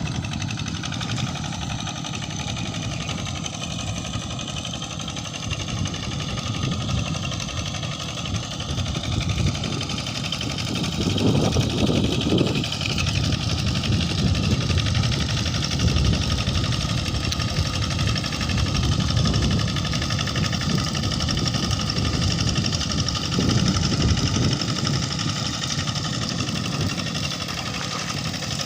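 The Kubota RD85 single-cylinder diesel of a TL800 walk-behind tractor runs steadily while pulling a harrow through a wet rice paddy. It gets louder about ten seconds in, with a few brief surges.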